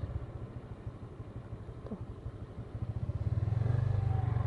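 Motorcycle engine running, a low pulsing note that drops off at first and picks up again about three seconds in.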